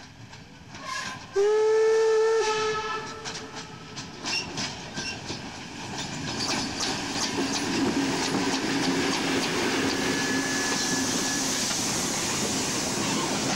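A steam locomotive sounds its whistle once, a loud chime lasting about a second. The locomotive then draws near and passes close by, with clicking and clanking running noise and a hiss of steam that grows louder.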